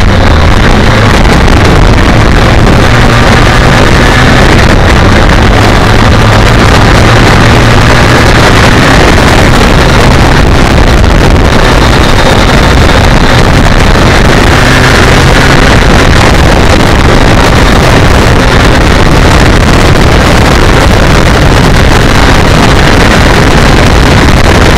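Loud, steady wind rush over the microphone of a motorcycle riding at speed, with the BMW K1200R Sport's inline-four engine running steadily underneath.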